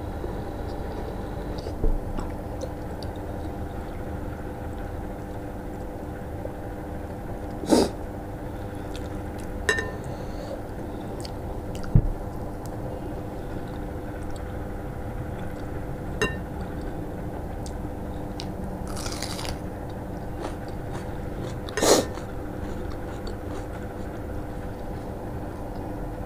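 Someone eating panta bhat with the fingers: chewing, and fingers working water-soaked rice in a ceramic bowl. About six sharp clicks or knocks against the dishes stand out over a steady hum.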